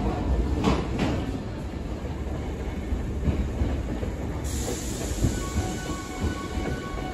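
Hankyu electric train at a station platform: a steady low rumble with two sharp wheel clacks about a second in.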